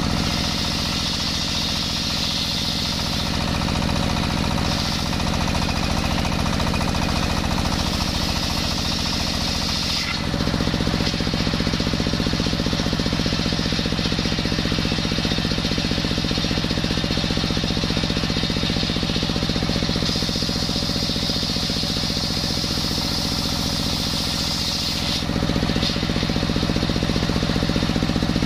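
Stationary single-cylinder diesel engine running steadily and belt-driving a circular saw blade. For the first ten seconds the blade cuts through a coconut log with a high hiss. The cutting stops for about fifteen seconds while engine and blade run on, then starts again near the end.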